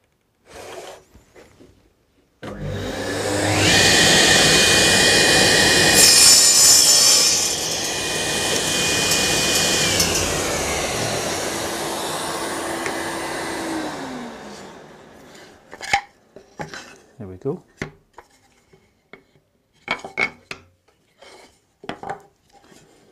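Table saw switched on a couple of seconds in and cutting through a maple board, loudest in the first few seconds of the cut. It is then switched off, and its pitch falls as it winds down. A few light knocks of the wood being handled follow.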